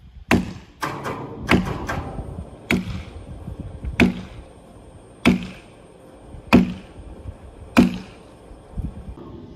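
Repeated sharp knocks of a tool striking wood, about nine blows, settling into a steady beat of roughly one every 1.3 seconds.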